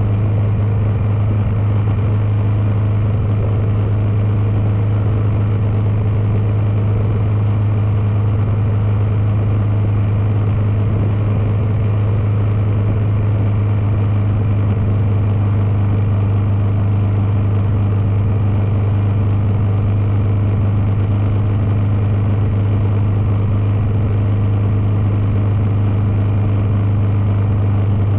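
Kawasaki KLR650's single-cylinder four-stroke engine running at a steady cruising speed, an even hum that holds the same pitch throughout.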